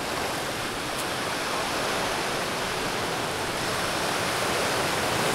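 Small waves washing onto a sandy beach, a steady even hiss of surf.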